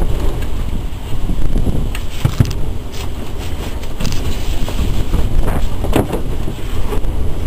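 Wind buffeting the microphone as a steady heavy rumble, with a few knocks and metallic rattles from work on the motorhome's front structure, the clearest about two, four and six seconds in.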